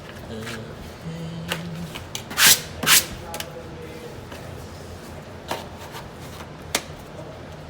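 Wallpaper being handled: two short, loud rustling swishes about half a second apart, among scattered light clicks and taps.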